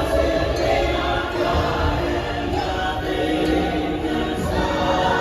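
Dark-ride soundtrack music with a choir of singing voices, over a steady low rumble.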